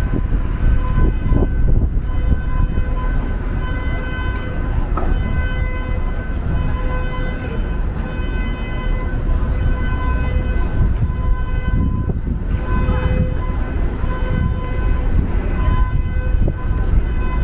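Street traffic rumbling, with a steady high-pitched tone and several overtones that breaks off and comes back several times.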